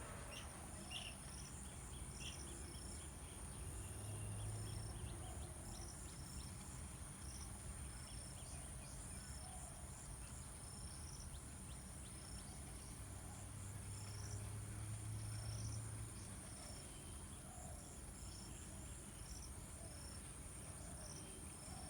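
Steady high-pitched drone of insects, with short high chirps repeating about once a second and faint calls lower down. A low hum swells twice.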